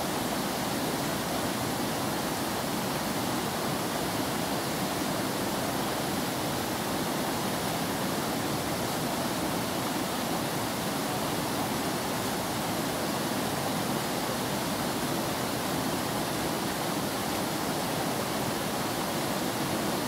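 Swollen, fast-flowing floodwater rushing steadily, a continuous even noise.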